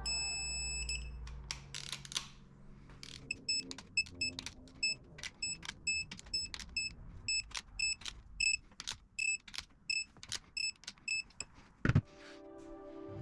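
Digital torque wrench beeping as cam-cap bolts are torqued: one long high beep, then a quick run of short beeps at about three a second as the target torque is reached. A single loud knock comes near the end.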